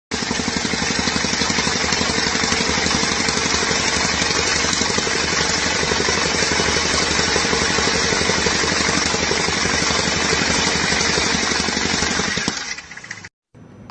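Gas-powered tamping rammer (jumping jack) running flat out, its engine and foot pounding in a fast, even rhythm, then winding down near the end.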